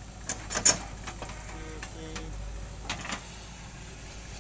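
JCB backhoe loader working: a steady low diesel engine hum under a string of sharp clanks and knocks from the backhoe bucket and arm as it tips soil into a tractor trolley and swings back to dig. The loudest knock comes about half a second in.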